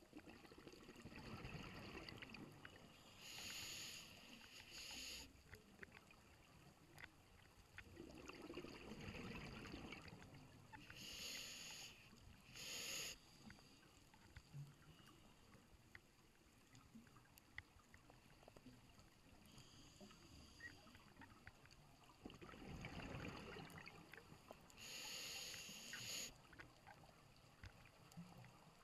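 Scuba diver breathing through a regulator underwater: slow, low inhalations, each followed by a burst of bubbling hiss as exhaust bubbles leave the regulator, about three breath cycles roughly ten seconds apart.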